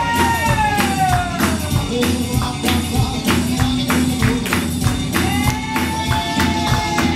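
A recorded song plays at dance volume: a sung vocal line gliding over a steady beat of sharp percussion hits.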